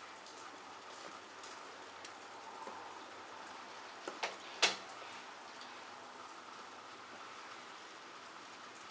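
Steady rain falling, an even hiss, with a few sharp taps a little over four seconds in, the last the loudest.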